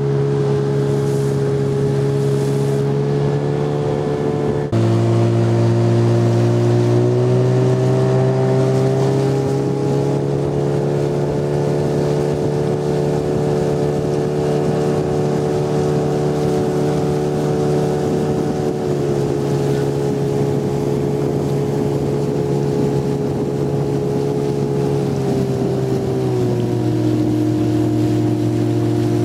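Small outboard motor on an inflatable boat running under way, a steady engine drone whose pitch shifts with the throttle: an abrupt drop in pitch and a jump in loudness about five seconds in, a slow rise over the next few seconds, then two small drops later on.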